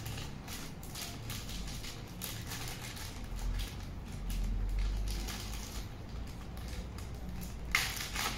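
Clear plastic bag rustling and crinkling as it is handled and opened by hand, with a sharper crackle near the end.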